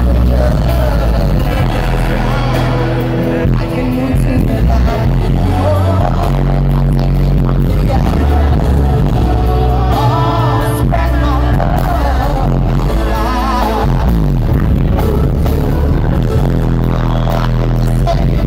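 Live band music heard from the audience through the venue's sound system, with a man singing into a microphone over a heavy bass line.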